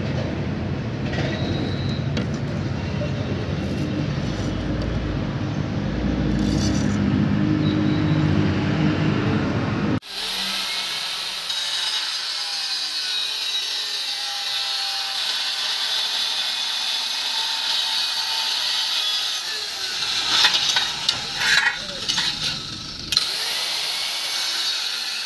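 For the first ten seconds, a dense low rumbling noise; then an electric angle grinder with a cutting disc running steadily, with a few sharp knocks about twenty seconds in.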